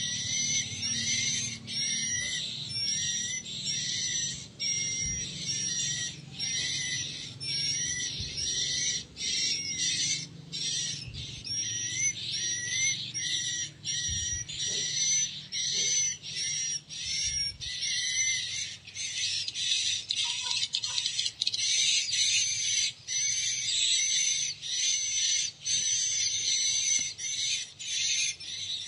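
A recorded swiftlet roosting call (the 'inap' lure used in swiftlet houses) played through a pair of horn tweeters on a swiftlet-house sound player: high, rapid chirping twitters repeated over and over with short breaks.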